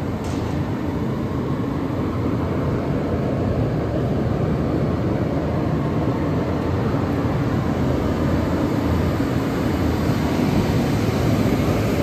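Steady machinery noise from a horizontal carbonization furnace plant, with its diesel burners and fans running. The noise is even and dense, mostly low-pitched, with no breaks.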